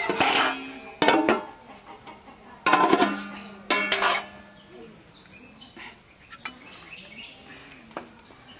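Four sharp ringing strikes about a second apart in the first four seconds, like metal on metal, then a quieter stretch with faint bird chirps.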